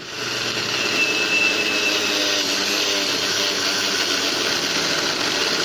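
Electric mixer grinder running steadily, its stainless steel jar grinding cooked rice and rice flour together into a dough mix.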